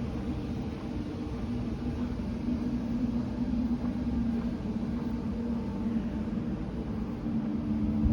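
Gusty wind buffeting the microphone as a low rumble, with a steady low hum under it.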